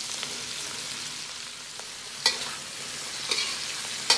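A stir-fry of shrimp, chillies and white shimeji mushrooms sizzling steadily in a hot oiled pan as it is stirred. A utensil knocks sharply against the pan about two seconds in, again a second later, and near the end.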